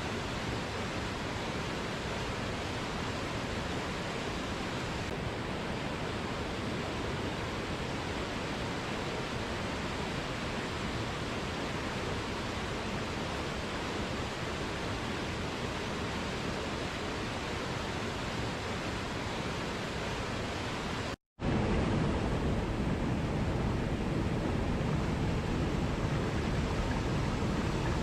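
Steady rush of flowing water. Near the end it cuts out for a moment and comes back louder and deeper.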